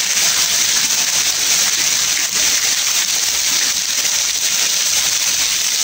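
Heavy tropical rain pouring down, a steady hiss with no let-up.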